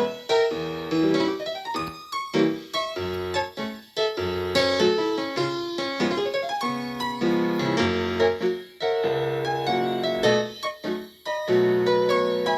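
Piano played on its own: chords and runs of notes, with short breaks between phrases.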